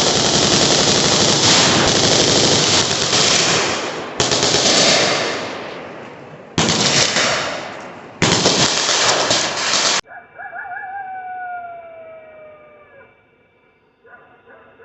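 Long strings of rapid automatic machine-gun fire in several clips, each cut off abruptly and the next starting at once. About ten seconds in this gives way to a much quieter recording with a single wavering call that slides down in pitch.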